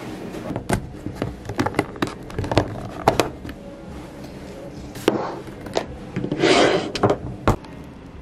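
Objects being handled and set down on a table: a string of light knocks and taps, with a short rustling scrape about six and a half seconds in.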